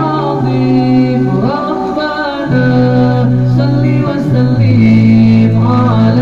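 Men singing an Arabic salawat (devotional praise of the Prophet) a cappella into microphones, in long held notes that slide to a new pitch every second or two.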